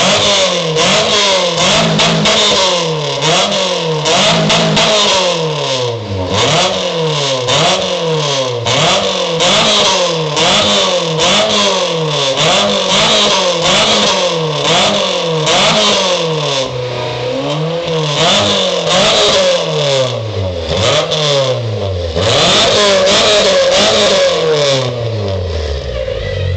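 A small engine revved over and over, its pitch climbing and falling back about once a second in a long run of blips, settling to a steady idle at the very end.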